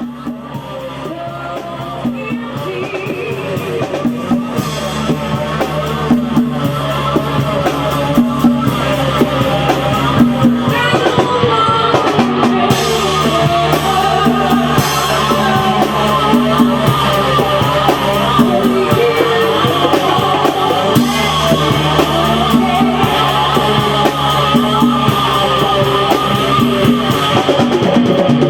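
Rock band playing: electric guitar, bass and drum kit, with a voice singing. It starts softer and builds up over the first few seconds, then keeps a steady beat.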